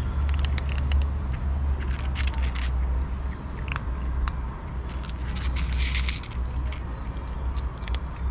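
Cats crunching dry kibble: a run of short, sharp crackling clicks as they chew, thickest a little past the middle, over a steady low rumble.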